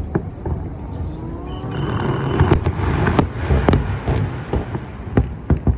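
Fireworks going off: a series of sharp bangs, coming thicker from about two seconds in, over a steady low background noise.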